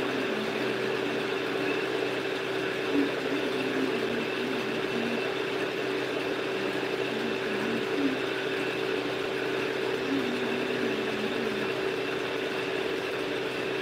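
A steady hum holding several constant tones, without change in level.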